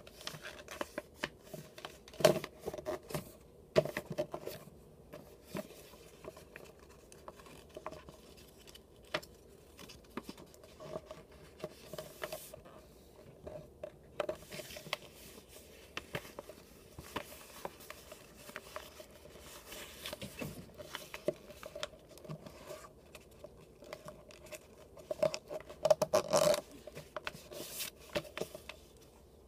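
A sheet of paper rustling and crinkling as it is folded into a paper airplane, the creases pressed and smoothed flat against a table, in scattered short scrapes and taps. The loudest rustling comes about two seconds in and again near the end.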